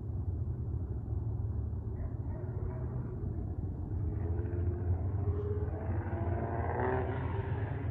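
A distant diesel locomotive horn, the Nathan K5HL on the lead unit, sounding faintly and growing louder in the second half over a steady low rumble of the approaching freight train.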